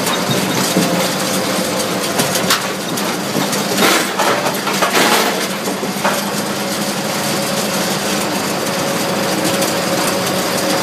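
Cambio 45 mobile ring debarker running steadily, with irregular knocks and clatter of logs being stripped of their bark.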